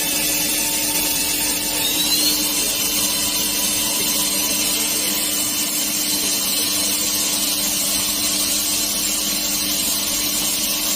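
Spindle of an SNK RB-200F 5-axis CNC bridge mill running steadily at about 6,000 rpm: a constant whine over a high hiss. A brief rising tone comes in about two seconds in.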